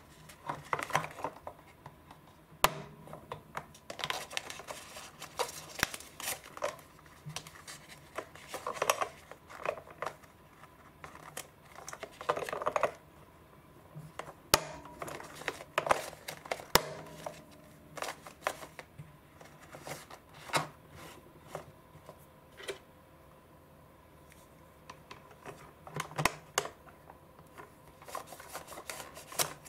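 Plastic parts of a roll sushi maker handled and fitted together: irregular clicks and knocks of the plastic rollers and frame, with a few stretches of rustling from the thin plastic film.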